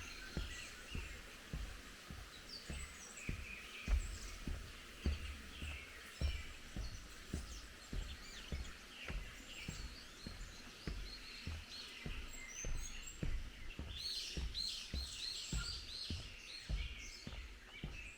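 Several birds singing and chirping, with a busier run of high calls about fourteen seconds in, over the steady low thuds of footsteps walking.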